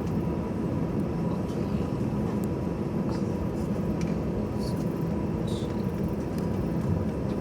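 Airbus A320's CFM56 engines and airframe heard from inside the cabin during taxi: a steady, even low rumble with a thin constant tone above it and a few faint ticks.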